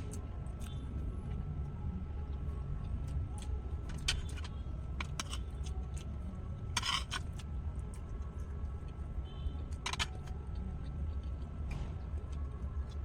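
Eating sounds: scattered small clicks and taps, with two brief louder crunch-like noises about seven and ten seconds in, over a steady low hum.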